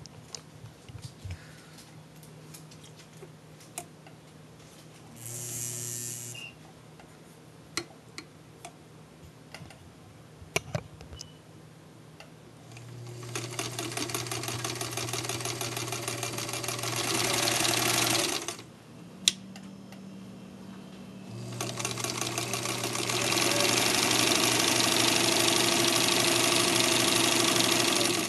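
Singer 66 sewing machine stitching through denim, its needle and feed clattering rapidly over a steady low hum. It runs in short bursts: a brief one about five seconds in, a longer run from about 13 s that speeds up and stops near 18 s, and another from about 21 s that picks up speed and runs until just before the end. Small clicks and knocks come between runs in the first twelve seconds.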